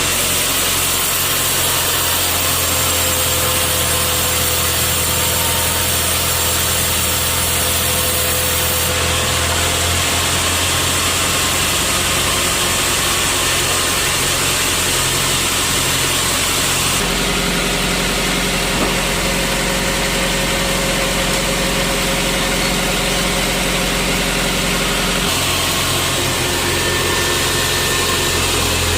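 Sawmill machinery running steadily, a continuous engine-like drone whose tone changes abruptly three times.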